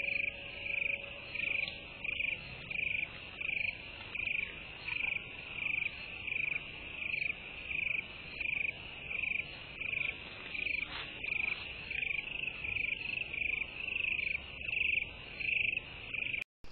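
An insect calling at night, cricket-like chirps repeated in an even rhythm of about two a second, each chirp short and slightly rough. The calling stops abruptly just before the end.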